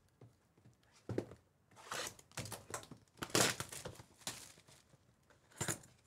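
Plastic shrink wrap crinkling and tearing as it is stripped off a sealed trading-card box. It comes in several short bursts, with one more crackle near the end as the cardboard box is handled.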